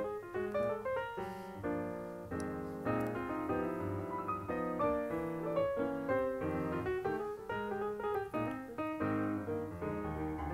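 Background music played on piano, a lively run of notes changing several times a second.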